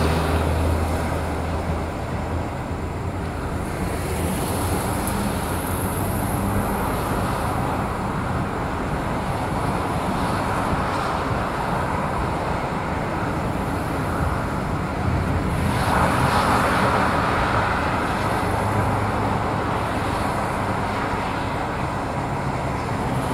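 Steady highway traffic: cars and lorries passing at speed, with tyre and engine noise. A lorry's low engine hum fades over the first few seconds, and one louder vehicle passes about two-thirds of the way through.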